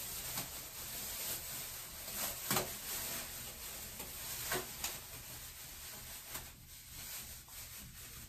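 Thin plastic shower cap rustling as it is pulled on and adjusted over the hair, with a few short sharp crackles.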